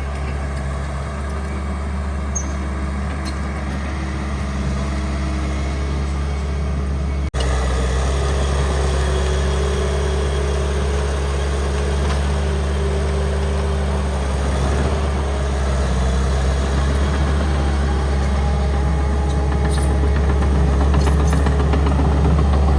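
A bulldozer's diesel engine runs steadily with a deep, even hum. It cuts out for an instant a little past seven seconds in, then slowly grows louder.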